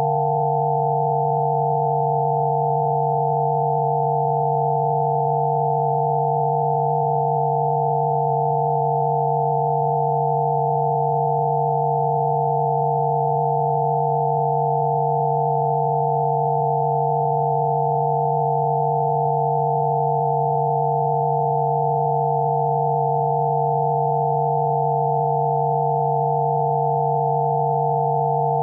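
Synthesized Rife-frequency sine tones: several steady pitches sounding together, one low and a cluster higher up, unchanging.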